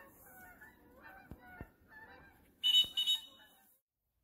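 Repeated short bird calls, with two short, shrill, high blasts a little past halfway that are the loudest sound.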